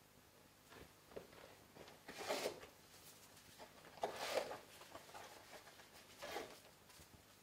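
Handling noises: about five short rustles and knocks over several seconds, the loudest about two and four seconds in, as emergency medical equipment is handled.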